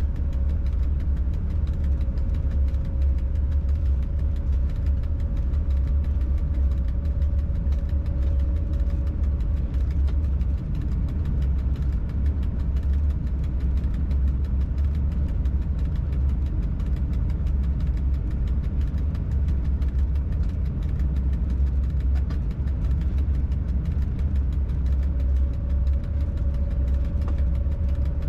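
Freight locomotive cab noise: a steady low rumble with a faint whine that fades out about a third of the way in and returns near the end.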